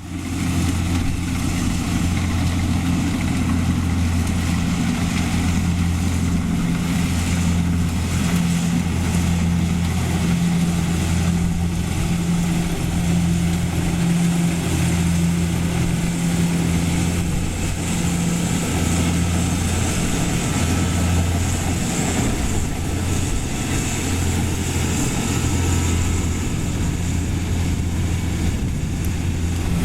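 Rice combine harvester's engine running steadily at an even speed, a constant low hum with machinery noise over it.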